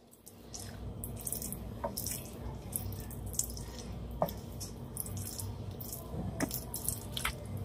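Wooden spoon stirring and folding thick, creamy chicken pot pie filling in an enamelled pan: soft wet squelching, with a few light knocks of the spoon against the pan. A steady low hum runs underneath.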